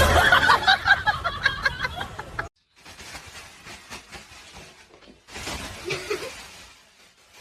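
People laughing and snickering, loud, cut off suddenly about two and a half seconds in; then faint noise with a brief louder patch near the end.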